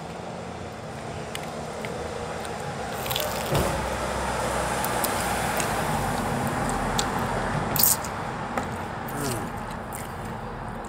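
A road vehicle passing by on the street, its noise swelling and then easing off, with a sharp click about eight seconds in.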